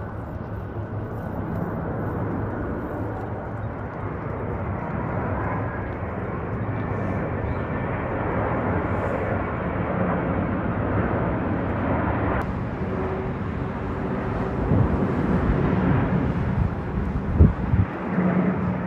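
Airbus A350-941 with Rolls-Royce Trent XWB engines passing overhead on approach: a steady jet roar with a low hum that slowly grows louder. A couple of short thumps near the end.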